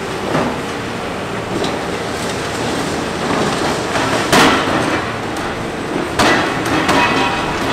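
Hitachi Zaxis 490 excavator running steadily while breaking up a subway tunnel structure, with irregular heavy knocks and crashes of broken concrete. The loudest crash comes about halfway through, and a few more, some with a short ringing, come near the end.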